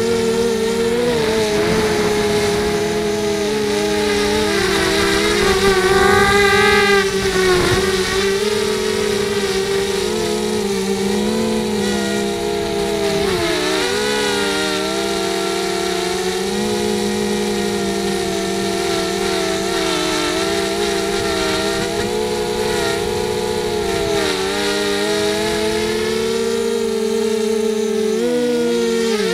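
FPV racing quadcopter's brushless motors and propellers whining, several tones rising and falling together with the throttle, heard from the camera on board.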